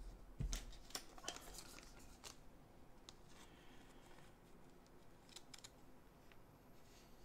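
Faint rustling and light scraping of a trading card being slid into a soft clear plastic sleeve, with a few small clicks of the card and plastic being handled.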